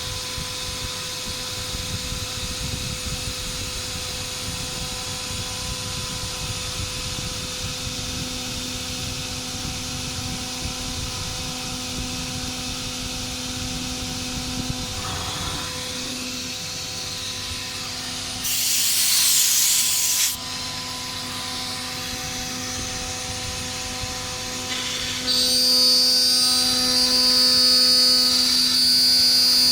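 CNC router spindle running and cutting, a steady machine hum. There is a louder hissing cut of about two seconds past the middle, then a louder high whine near the end that stops suddenly.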